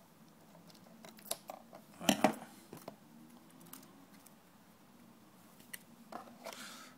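Scissors snipping adhesive tape: a few short sharp cuts, the loudest about two seconds in, with a brief rustle of tape near the end.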